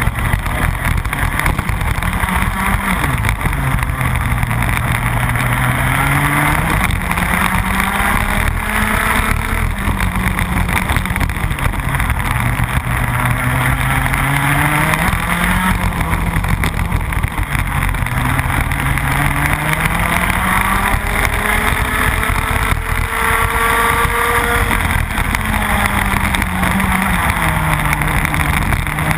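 Rotax Max 125cc single-cylinder two-stroke kart engine at racing speed, heard from on board. Its pitch climbs steadily, then drops sharply, several times over.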